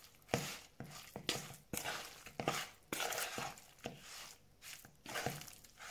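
Metal spoon stirring and scraping chopped cod through a thick gram-flour and spice batter in a plastic bowl, with short wet scrapes and knocks against the bowl about two to three times a second. Extra gram flour is being worked in to make a thick, water-free batter.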